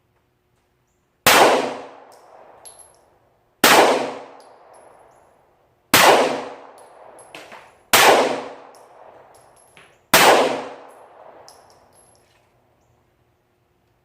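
Five 9mm pistol shots from a stock Glock 19 Gen4, fired slowly about two seconds apart, each a sharp crack with a ringing tail that dies away over a second or so. Faint ticks sound between the shots.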